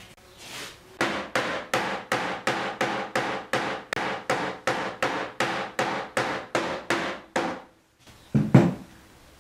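Hammer pounding flower petals folded inside white cloth laid on a cardboard pad, striking evenly about three times a second, then one louder thump near the end. The beating crushes the petals and presses their colours into the fabric to make the print.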